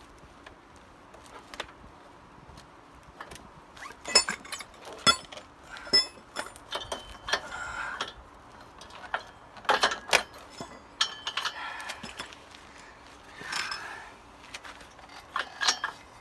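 Metal tools and parts clinking and knocking in scattered clusters, starting about four seconds in, while a motorcycle's rear wheel and sprocket are being put back together.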